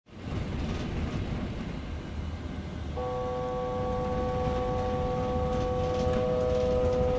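Steady low rumble of the Airbus A320 flight simulator's cockpit, the simulated cruise flight and engine noise. About three seconds in, a steady chord-like electronic warning tone starts and holds.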